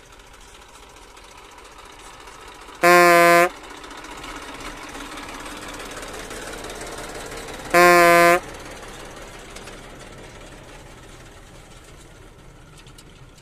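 Vehicle horn sounding two short blasts about five seconds apart, each a steady, buzzy tone that starts and stops abruptly and is the loudest thing heard. Under them a tractor engine runs steadily as it pulls a loaded trailer.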